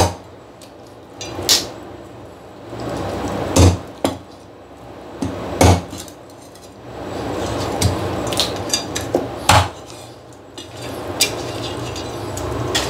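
A Chinese cleaver chopping through a sea bass backbone on a round wooden chopping block, in single sharp chops about two seconds apart.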